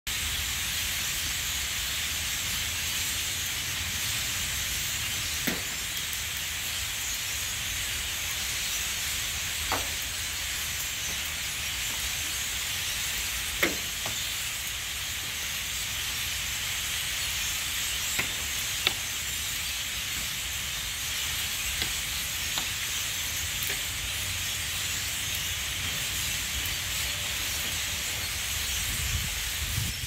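Massed chatter of a huge flock of blackbirds in the trees, so dense that it blends into a continuous hiss, with a handful of sharper single calls or clicks standing out. A steady low rumble runs underneath.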